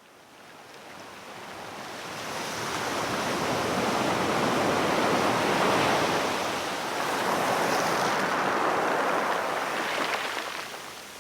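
Steady rushing water noise that fades in over the first few seconds and eases off near the end.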